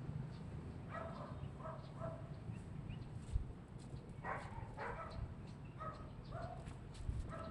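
A dog barking in short, high yaps, about nine of them, some in quick pairs, over a low rumble.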